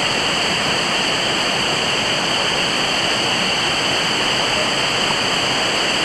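Waterfall crashing down a rocky cascade into a pool, a steady, unbroken rush of white water.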